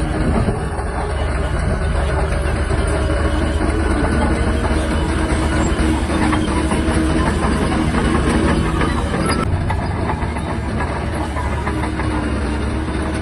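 Shantui DH17-C3 bulldozer's diesel engine running steadily, with a low rumble and the constant clatter of its steel tracks.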